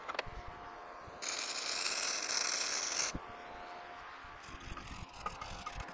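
Flux-core wire welding arc from a Forney Easy Weld 140 FC-i welder: a brief arc strike at the start, then a steady sizzling hiss for about two seconds that cuts off sharply. Light clicks of handling follow near the end.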